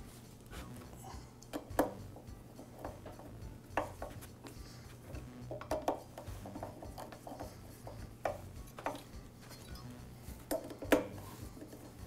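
Screwdriver driving screws into a small engine's intake insulator and gasket, with scattered small clicks and knocks of metal and plastic parts being handled. The two loudest knocks come about 2 s in and near the end.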